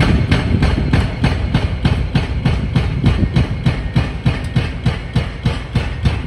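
Excavator-mounted hydraulic breaker hammering concrete in a fast, even rhythm of about five blows a second, over the steady low running of the excavator's diesel engine.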